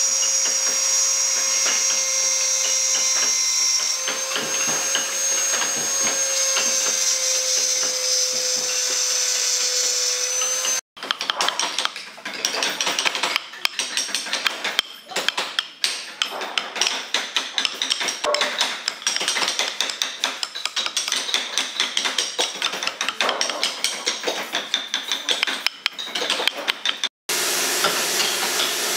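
Handheld electric rotary carving tool running with a steady whine as its small burr grinds into the wood, its pitch sagging slightly under load. It stops abruptly at about 11 seconds and gives way to a hand chisel cutting wood: a long run of sharp, irregular clicks and chips. Near the end a steady hiss takes over.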